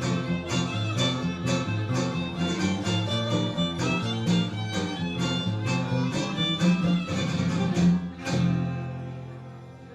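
Trío huasteco of violin and strummed guitars (jarana and huapanguera) playing the closing bars of a polka, ending on a final chord about eight seconds in that rings away.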